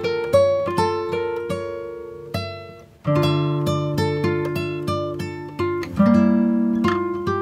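Background music of plucked strings: picked notes ringing and fading, with new chords struck about three and six seconds in.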